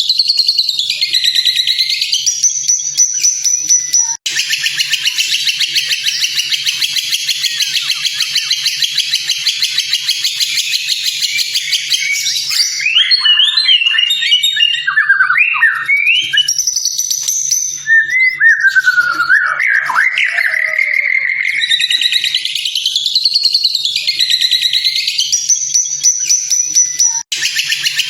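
Recorded songbird song played as a tutor track: a long, fast high trill, then varied whistled phrases that glide up and down, then repeated rising-and-falling whistles. The track cuts out abruptly for an instant twice, about four seconds in and near the end.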